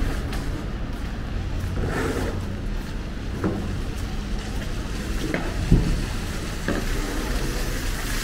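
Snowy city street ambience: a steady low traffic rumble under a crackling hiss, with a few soft crunches spaced a second or more apart.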